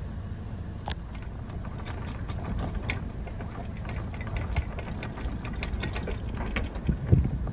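Sailboat's anchor chain rattling out as the anchor is set, in quick irregular clicks that thicken about two seconds in, with a louder clunk near the end. Under it the boat's engine runs steadily at a low rumble.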